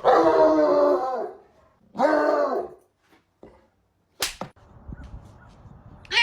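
A dog's two long yelping cries, each rising then falling in pitch, followed by a sharp slap-like crack about four seconds in and another at the end.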